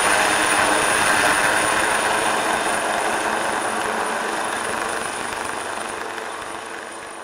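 AgustaWestland AW139 helicopter in flight: its twin turboshaft engines give a steady high whine over loud rushing rotor noise, which fades gradually over the last few seconds as the helicopter moves away.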